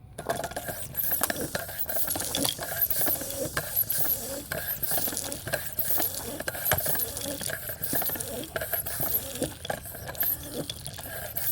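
Topeak Joe Blow Fat floor pump worked by hand, a busy run of clicks and clatter from its strokes, pumping air into a 27.5 x 3.0 tubeless tire mounted dry to seat the bead.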